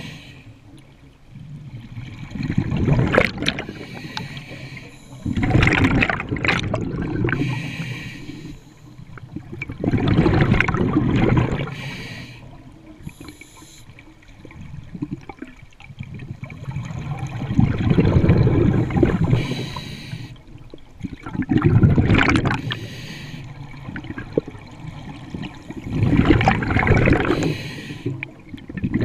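Scuba diver breathing through a regulator underwater: bursts of exhaled bubbles rumbling and gurgling out every four to five seconds, with quieter stretches between breaths.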